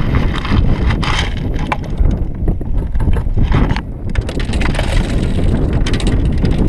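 Wind buffeting a kart-mounted camera microphone as a steady low rumble, with scattered knocks and scuffs as the driver climbs out of the stopped electric go-kart.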